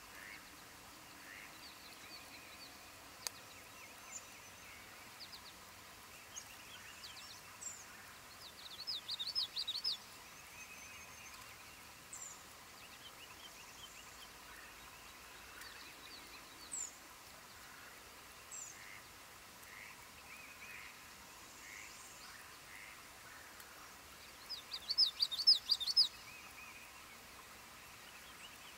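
Northern parula singing twice, each song a quick run of rapid high notes lasting about a second and a half, about fifteen seconds apart. Faint, scattered calls of other birds in between.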